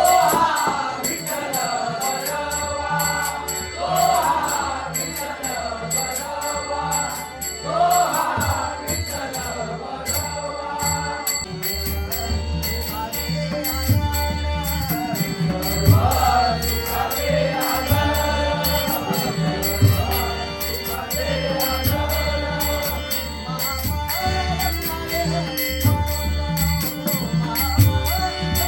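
Traditional Konkan devotional bhajan: a male voice sings a wavering melody over regular drum strokes and small hand cymbals that keep time with even, bright strikes.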